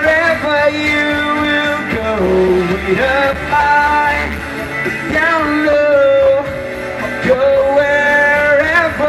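A man singing long held notes into a microphone over instrumental accompaniment with guitar.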